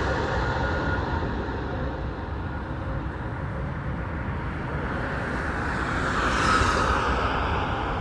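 Airbus A320-232 jet engines on landing, a steady rushing noise that eases a little midway and swells again near the end.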